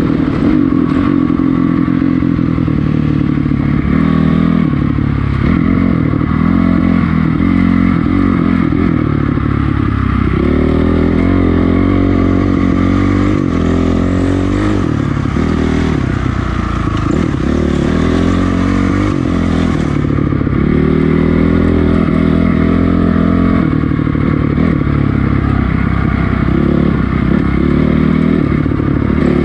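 2006 Honda CRF450R's single-cylinder four-stroke engine being ridden hard, revving up and falling off again and again as the throttle opens and closes through the gears.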